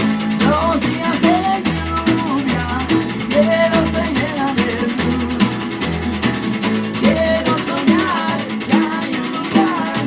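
Band playing an instrumental passage of a song: guitar over bass and drum kit keeping a steady beat.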